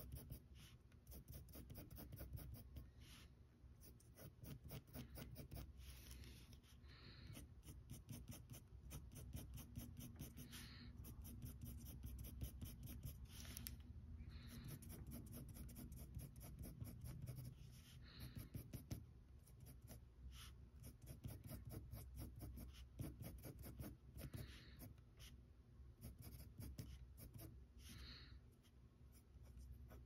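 Faint pencil strokes on paper: rapid short scratchy strokes, with a slightly louder, longer stroke every couple of seconds.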